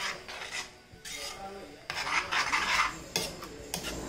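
A metal ladle stirring and scraping in a clay pot of egg curry masala as thick coconut milk is stirred in. The strokes are soft at first and grow louder about halfway through, with a couple of sharp clinks near the end.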